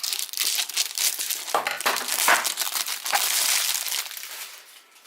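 Packaging being unwrapped by hand: a dense crinkling and rustling of wrapping material that dies away over the last second.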